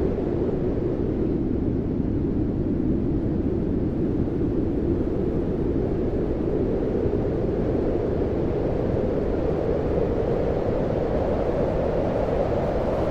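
Blizzard wind howling steadily, a low rushing noise with no breaks. Its pitch dips a little about two seconds in and slowly rises again toward the end.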